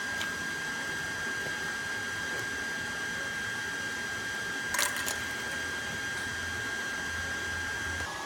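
A small motor running steadily with a constant high whine, and a couple of light clicks about five seconds in.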